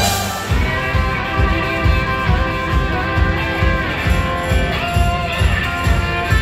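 Live rock band playing: electric guitars, bass, drums and keyboards over a steady drum beat.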